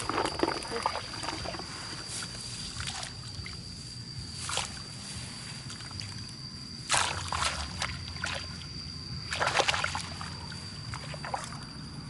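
Hands sloshing and splashing in shallow muddy water in irregular bursts, the loudest a few seconds apart. A steady high-pitched whine runs underneath.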